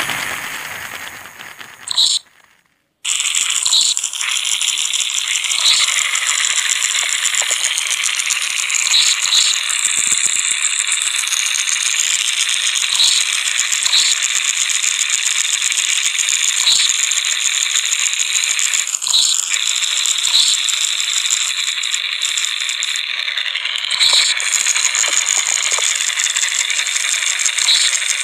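Harsh, high-pitched rattling and hissing noise texture with almost no low end, part of the music track's instrumental opening. It cuts out briefly about two to three seconds in, then runs on steadily, with short high chirps now and then.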